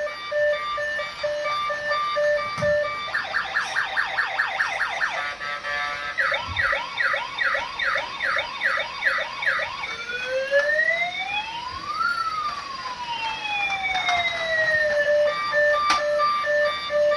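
Toy remote-control police car's electronic siren sound effect cycling through its patterns. It starts with a repeated beeping, goes to a fast yelp of about five sweeps a second, then a slower yelp of about two a second, then one long wail rising and falling, and returns to beeping near the end.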